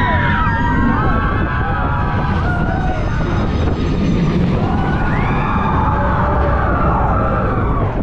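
Big Thunder Mountain Railroad mine train rumbling along its coaster track. Over the rumble come overlapping high, wavering screams from the riders: a burst right at the start and another from about five seconds in.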